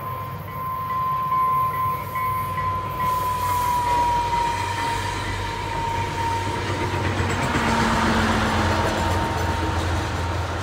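A FrontRunner commuter train of bilevel coaches rolls past with a steady high whine that dips slightly in pitch partway through. Near the end, the diesel locomotive pushing at the rear goes by, with a deep engine rumble and louder rolling noise.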